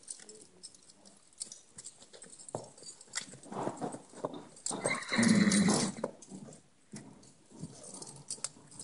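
Hooves of a yearling thoroughbred colt knocking on rubber matting and paving as he is led at a walk, then standing. About five seconds in a horse gives one loud whinny lasting about a second.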